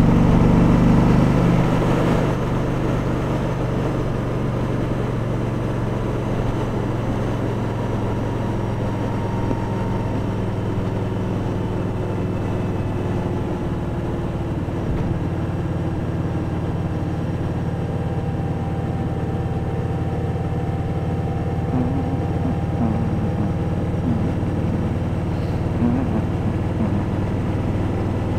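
Kawasaki Vulcan 1700 Voyager's V-twin engine running while the motorcycle is ridden, a little louder for the first two seconds, then settling into a steady, even note.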